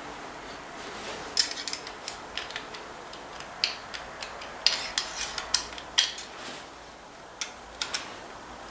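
Light, irregular metallic clinks and taps as a Ford 800 tractor's rocker oil line is worked by hand to seat it down into its fitting, with a cluster of sharper clicks in the middle.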